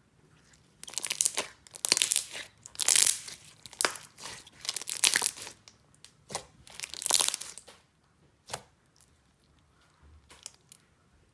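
Clear slime being stretched, squeezed and folded by hand, crackling and crunching in a run of loud bursts for most of the first eight seconds, then one short snap and quieter handling.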